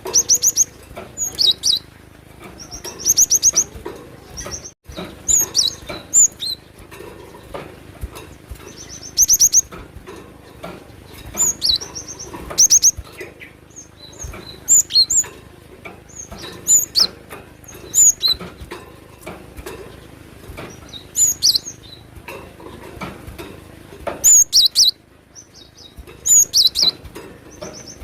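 Cinereous tit (glatik batu) singing: short bursts of rapid, high, chirping notes, repeated every one to three seconds.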